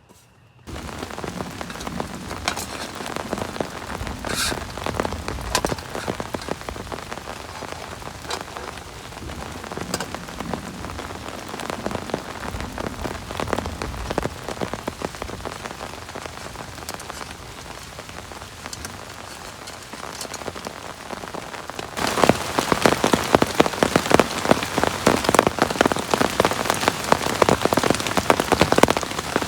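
Heavy rain falling in a dense patter of drops, with a few sharper single drop hits. It starts abruptly just after the beginning, and about three quarters of the way through it turns suddenly louder and heavier.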